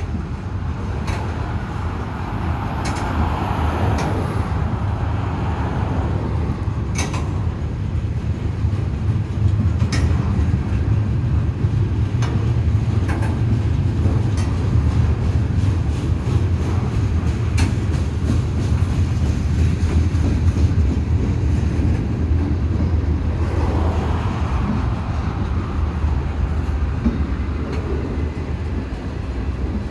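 Freight train cars rolling past at trackside: a steady low rumble of steel wheels on rail, with scattered sharp clicks as the wheels pass over rail joints.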